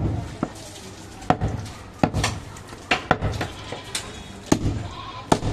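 Heavy butcher's cleaver chopping goat meat on a round wooden chopping block: about ten sharp chops at uneven intervals.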